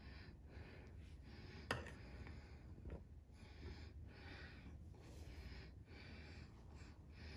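Near-silent room with soft breathing close to the microphone, faint puffs of breath about once a second, and a single sharp click a little under two seconds in.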